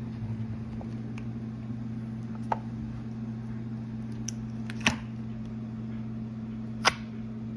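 Three short, sharp clicks from a plastic slime container being handled and opened, over a steady low electrical hum.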